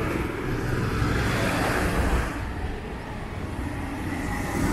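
Street traffic: the steady noise of passing vehicles, with one vehicle swelling up and passing about two seconds in.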